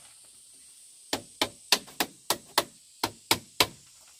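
Nine sharp blows of a hand tool striking in quick succession, about three a second, starting about a second in, as in chopping or knocking on building material.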